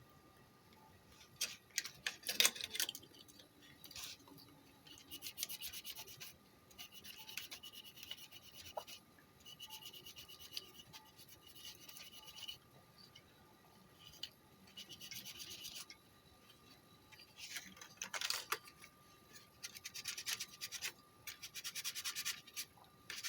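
Dried, hardened heat-sink compound being scrubbed off an amplifier IC and its metal heat sink. The quick rasping strokes come in bursts with short pauses between them.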